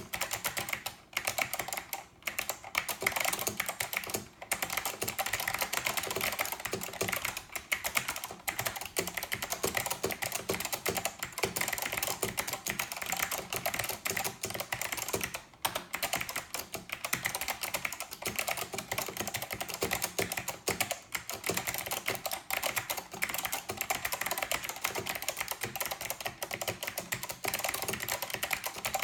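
Continuous fast typing on a Northgate OmniKey 102 mechanical keyboard with clicky SKCM Blue Alps switches, a dense stream of key clicks broken only by a few brief pauses.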